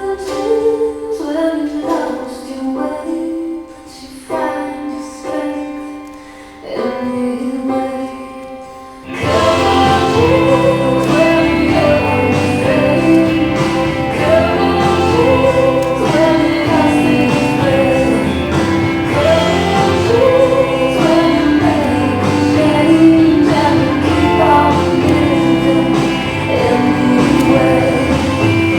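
Recorded music with singing. It is sparse and quieter for about the first nine seconds, then a fuller, louder arrangement comes in suddenly.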